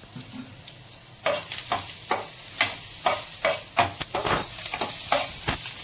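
Chopped garlic sizzling in hot oil in a non-stick frying pan. From about a second in, a spoon stirs it, scraping across the pan two or three times a second.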